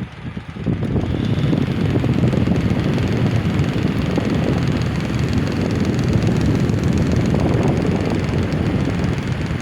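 Electric fan running, a steady rush of air with a low rumble. It gets louder about a second in and then holds steady.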